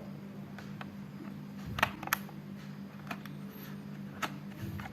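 A few light clicks and taps of a 2.5-inch SATA SSD and its bracket being fitted into a laptop's drive bay, over a steady low hum.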